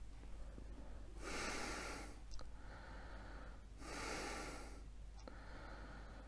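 Breathing through an FFP2 mask: two slow, soft breaths a couple of seconds apart, with a third starting at the end.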